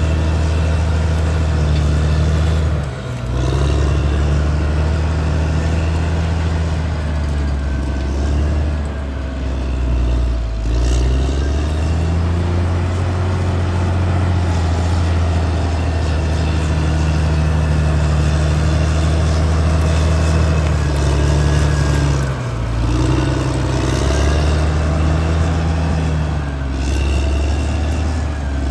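Caterpillar D6R XL bulldozer's diesel engine running steadily under load, its pitch shifting slightly as the machine works. The engine note dips briefly three times: about three seconds in, near the middle, and a few seconds before the end.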